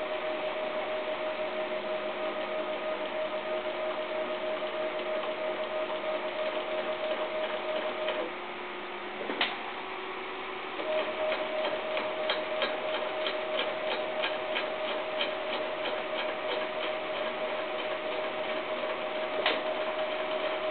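Stepper motors of a homemade H-Bot 3D printer driving its axes in a dry test run: a steady whine that stops about eight seconds in, then a single click. The whine returns with a run of regular ticks for several seconds, and there is another sharp click near the end.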